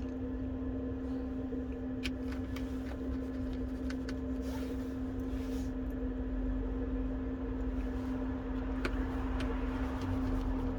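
A steady mechanical hum with a few faint light clicks, such as small tools touching phone parts during reassembly.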